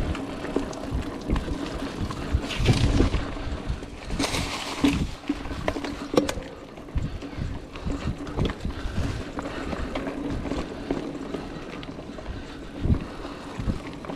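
2019 Trek Roscoe 8 hardtail mountain bike rolling along a leaf-covered dirt singletrack: steady tyre and trail noise with several sharp knocks and rattles as the bike goes over bumps.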